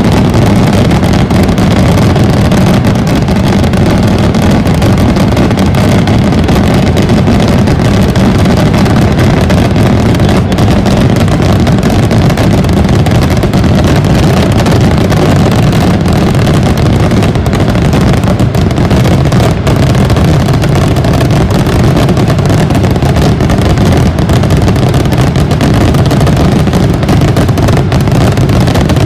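Massed aerial rockets (voladores) launching and bursting all at once, their overlapping bangs and whooshes merging into one unbroken, very loud din with no gaps.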